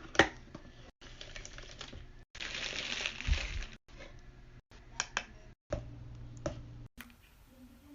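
A string of short, sharp clicks and taps from small objects being handled, with a longer rustle in the middle, broken up by abrupt cuts.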